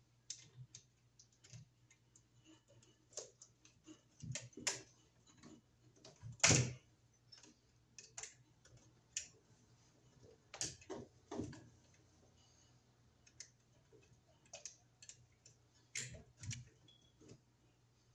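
Irregular small clicks and taps of a screwdriver and metal wire ends against a worn duplex wall receptacle as it is handled out of its box, with a louder knock about six and a half seconds in.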